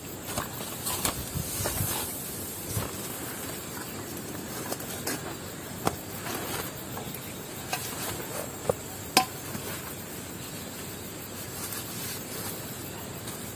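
Wood cooking fire crackling: a steady hiss with scattered sharp pops, the loudest about nine seconds in.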